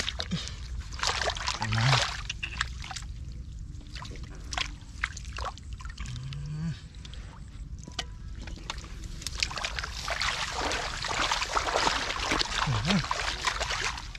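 Hands sloshing and splashing in shallow muddy water, with wet slaps and clicks throughout and a denser, steadier run of splashing from about ten seconds in.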